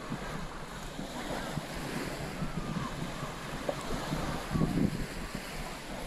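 Small waves washing onto a sandy Baltic Sea beach, a steady hiss of surf, with wind buffeting the microphone.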